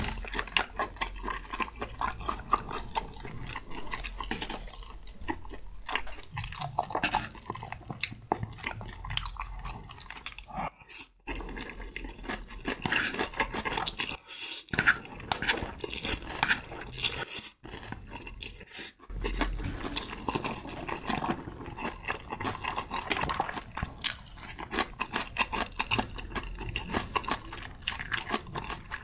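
Close-miked mouth sounds of slurping and chewing saucy spicy instant noodles: dense wet smacks and squelches. It drops out to silence a few times briefly.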